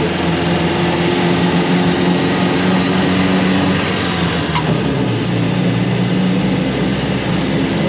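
An Austin 7 Ruby's small four-cylinder side-valve engine running as the car drives along, heard from inside the cabin. The engine note drops about halfway through.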